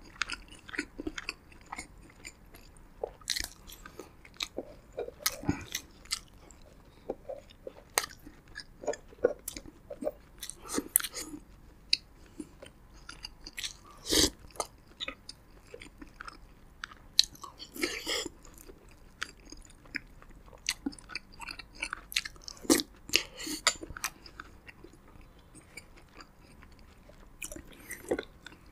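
Close-miked chewing and biting of roasted pigeon meat and rice, with irregular wet smacks and clicks of the mouth. About 14 seconds in comes a louder sip of mung bean soup from a metal spoon.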